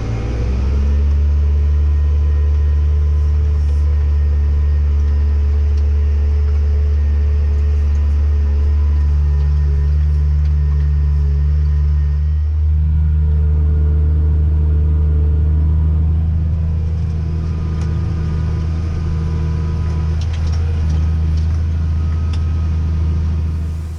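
Heavy farm machine's diesel engine running steadily: a loud, even low drone with a faint steady whine above it. It cuts off suddenly at the very end.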